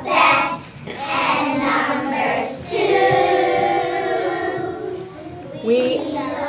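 A group of young kindergarten children singing together in unison, holding one long note a little after the middle.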